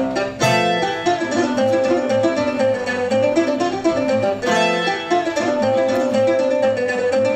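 Bandolim (Brazilian mandolin) and acoustic guitar playing a choro tune: a quick picked mandolin melody over guitar accompaniment.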